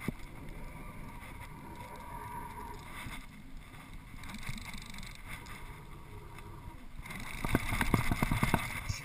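Spinning reel being cranked and rod handled close to the microphone: steady low rubbing and handling noise, with a louder run of rapid, irregular clicks and knocks in the last two seconds.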